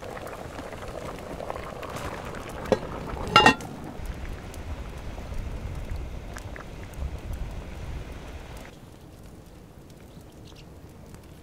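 Spice-rubbed meat sizzling as it sears in a hot iron pan, with two sharp clacks about three seconds in. The sizzle then gives way to a lower, rougher noise that cuts off suddenly near the end.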